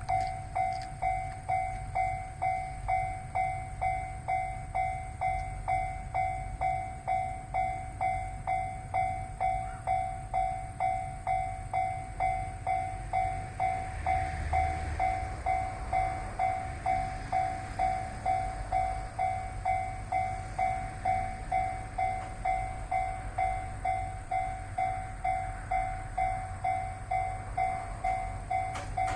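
Japanese level-crossing alarm ringing: a steady two-tone electronic bell repeating about one and a half times a second, with a low rumble beneath it that swells briefly about halfway through.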